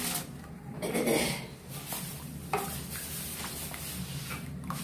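A metal spoon stirring thin red fish-curry gravy in a pan, mixing in pieces of kudampuli (Malabar tamarind). There is a louder stretch of wet stirring about a second in, then a few light clinks and scrapes against the pan.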